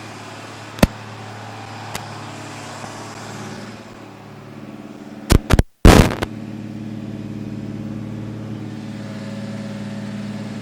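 Freshly installed Mopar 440 V8 running steadily at fast idle during camshaft break-in. Sharp clicks about one and two seconds in, and a cluster of loud knocks midway, the loudest sounds, with a brief dropout among them.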